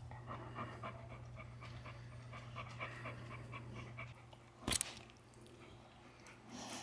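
A pit bull panting in quick, even breaths for the first four seconds or so, with a low steady hum under it. A single sharp knock comes about two-thirds of the way in.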